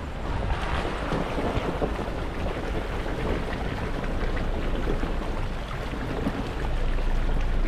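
Jeep driving off-road, a steady low rumble with wind noise on the microphone.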